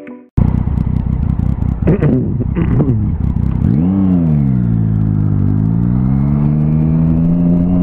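Motorcycle engine heard from onboard while riding: two quick throttle blips about two seconds in, then the revs climb and drop back around four seconds in and rise slowly and steadily as the bike pulls along.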